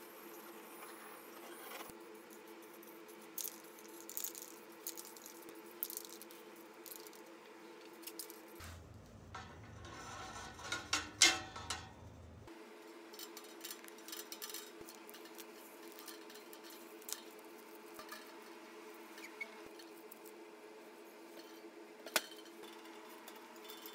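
Scattered light metallic clinks and rattles from sheet-steel stove parts being handled, over a steady faint hum. The sharpest clink comes about eleven seconds in.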